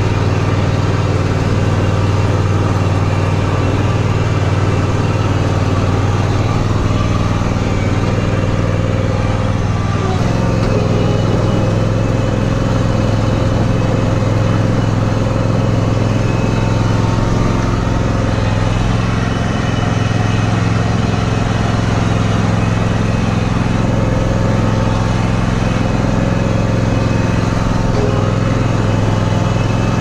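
John Deere X300R lawn tractor engine running steadily under load as the tractor pushes snow with a front blade. The engine note changes slightly about ten seconds in.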